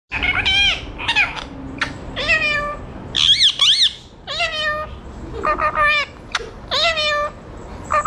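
Yellow Indian ringneck parakeet calling at its reflection in a mirror: a string of short calls, each rising and falling in pitch, with two higher, louder calls near the middle.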